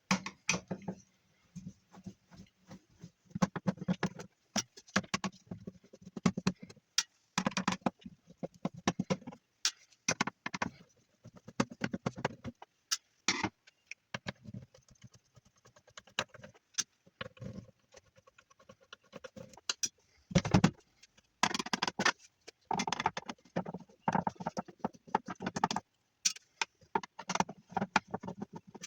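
Metal clattering and knocking as the metal case of a dead power unit is taken apart: irregular sharp knocks, rattles and scrapes of tools, screws and panels.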